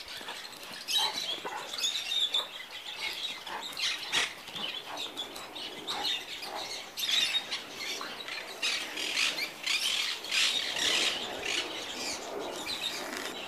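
Two Maremma sheepdogs play-fighting on stone paving: irregular scuffling, with claws scraping and clicking on the stone.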